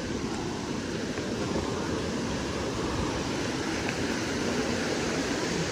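Steady rushing of waterfall and river cascades, an even hiss with no breaks.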